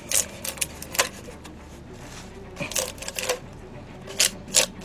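Posters and their paper or plastic wrapping being handled and unpacked: scattered crinkles and sharp clicks in several short clusters.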